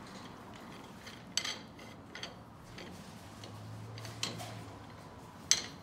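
Slide hammer pulling a dowel pin from a lathe apron: about four sharp metallic clacks, unevenly spaced, as the sliding weight strikes its stop.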